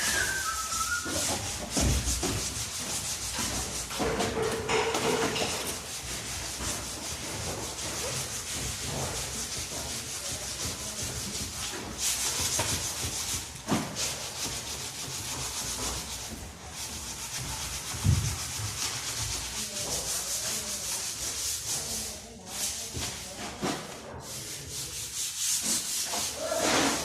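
Sandpaper scrubbing back and forth over a wooden window shutter in uneven strokes, rubbing off old red paint down to the bare wood.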